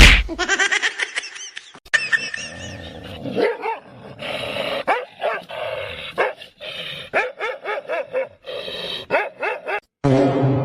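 A dog barking: many short barks in quick succession.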